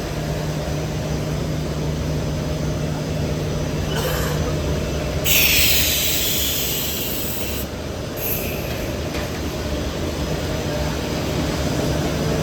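A four-layer air bubble film lamination machine running with a steady mechanical drone and hum. About five seconds in, a loud hiss lasts a couple of seconds, with shorter hisses just before and after it.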